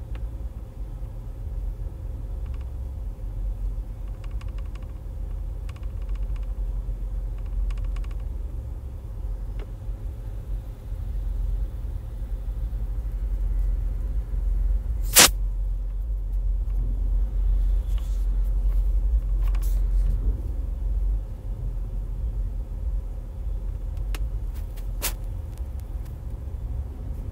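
Steady low rumble inside a car, the cabin noise of its running engine, with one sharp click about halfway through.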